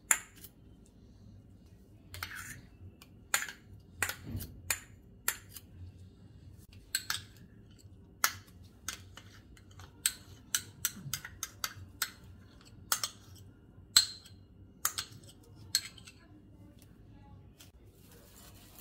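A metal spoon clinking and tapping against small bowls as paste and yogurt are spooned out, a series of sharp, irregular clicks.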